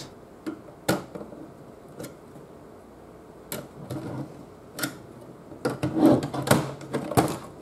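Small screwdriver prying at the sheet-metal top cover of a CD-ROM drive: a few separate sharp clicks and scrapes, then a denser run of metal clicks and knocks near the end as the cover is worked loose by hand.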